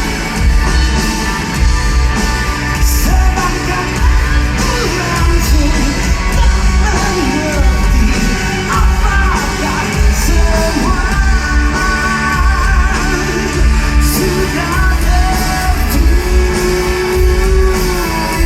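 Live rock band playing with singing over drums, bass and guitars, with a heavy, booming low end and occasional cymbal crashes.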